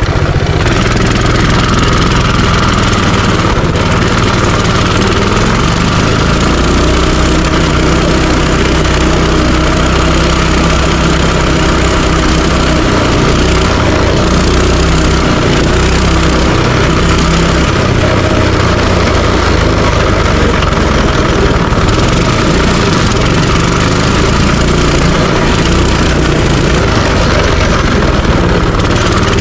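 Minibike's small engine running steadily while being ridden, loud throughout, with slight changes in pitch.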